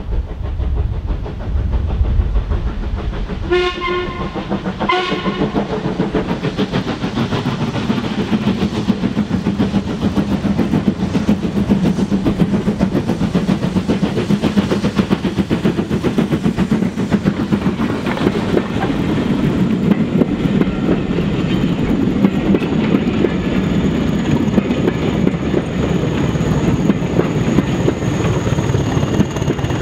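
LMS Ivatt 2MT 2-6-2T steam tank engine No. 41241 sounds two short whistle blasts about four and five seconds in. It then runs past hauling coaches, with a steady rumble and the wheels clattering over the rail joints. The Class 20 diesel on the rear of the train passes near the end.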